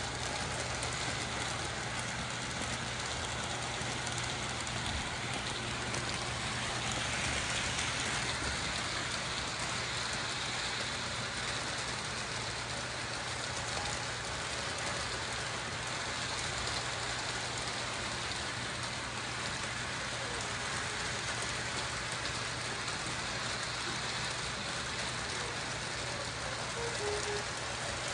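Electric model trains running on loops of track: a steady rolling rumble and rattle of wheels on the rails, with a constant low hum underneath.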